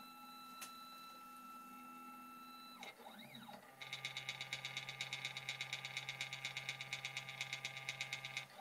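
Stepper motor of a Sainsmart 3018 PROVer desktop CNC running a Z-axis touch-plate probe cycle. It gives a faint steady whine that stops about three seconds in, then a brief rising-and-falling whine. From about four seconds in comes a fast, even pulsing over a low hum as the axis creeps slowly against the touch plate.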